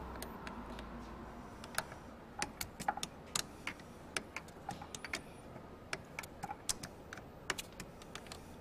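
Irregular sharp clicks and taps of an Allen key being seated in and turned on the towing mirror's mounting bolts in the door, the bolts being snugged up firm.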